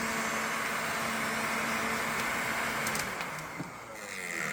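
Electric heat gun blowing with a steady hum. It is switched off about three seconds in, and its fan winds down.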